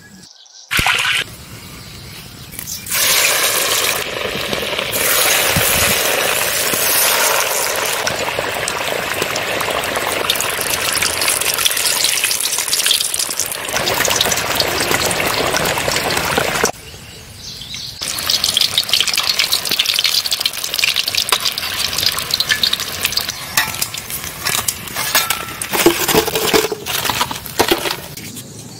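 Hot oil sizzling loudly in an iron kadai over a wood fire as breaded snail patties deep-fry. The sizzle breaks off briefly about 17 seconds in, then carries on with many sharp crackles.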